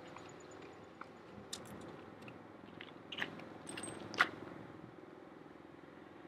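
Quiet outdoor background with a faint low steady hum and a few small clicks and crunches, the loudest about four seconds in. No gunshot.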